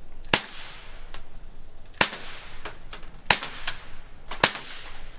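.22 pistol fitted with a Rugged Oculus 22 suppressor firing standard-velocity ammunition: four suppressed shots a little over a second apart, each a sharp crack with a short tail. Fainter ticks sound between the shots.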